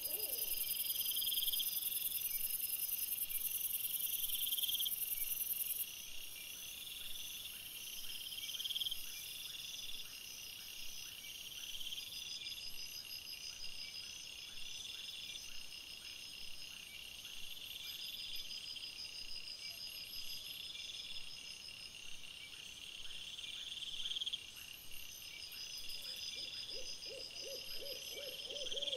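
Night insects trilling in short repeated bursts of about a second each, with a steady high hiss over them that cuts off abruptly about six seconds in. A faint, fast series of lower calls starts near the end.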